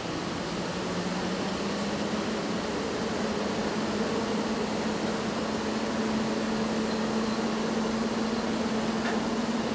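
EU07 electric locomotive hauling a loaded container train as it pulls away: a steady rushing, fan-like running noise with a low hum that rises slightly in pitch in the first couple of seconds and then holds, growing a little louder.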